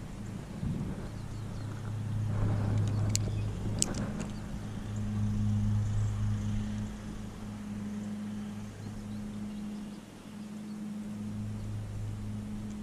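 A steady low motor hum that swells and fades in level, with a few sharp clicks about three to four seconds in.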